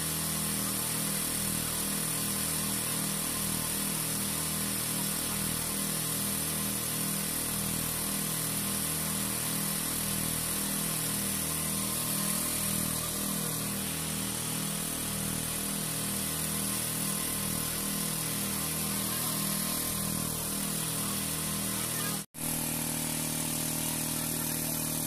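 An engine running steadily with a slow, regular pulse in its note. It drops out for a split second a few seconds before the end, then carries on with a slightly changed tone.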